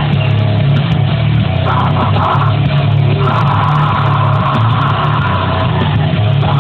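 Loud heavy metal music with guitars, played on a car stereo.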